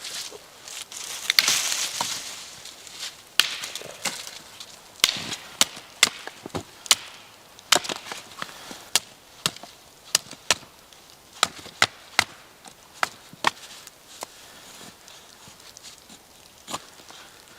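Wood being chopped: a run of sharp strikes, about one or two a second, thinning out near the end, after a rustling hiss in the first couple of seconds.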